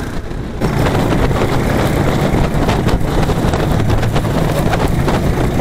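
Small petrol engine of a motorised snow tow running hard as it pulls a sled across the ice, getting louder about half a second in, with wind buffeting the microphone.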